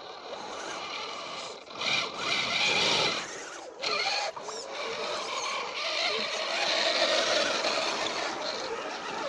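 Electric motors and geared drivetrains of radio-controlled scale crawler trucks whining as they crawl through a muddy puddle, the wheels churning the water. The whine swells in spurts with the throttle and stays louder through the second half.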